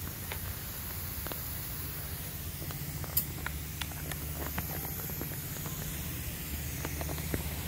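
Lawn sprinkler spray heads hissing steadily as the zone runs, over a steady low hum, with scattered faint clicks.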